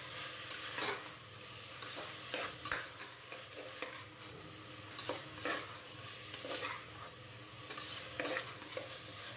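Diced vegetables sizzling in ghee in a pressure cooker while being stirred with a perforated steel skimmer ladle, which scrapes and clinks against the pot every second or so.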